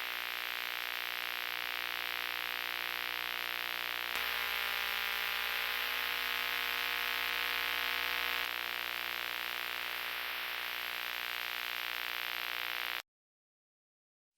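Steady static hiss over an electrical hum made of many steady tones. The hiss thickens from about four to eight seconds in, and everything cuts off suddenly near the end.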